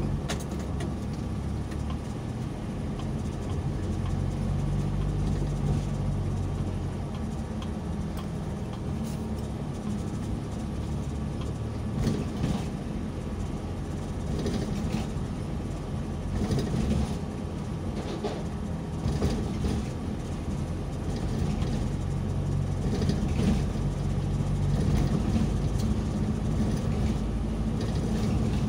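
Engine hum and road noise of a vehicle driving on wet pavement, heard from inside the cabin. The engine's low hum steps up and down in pitch as the speed changes.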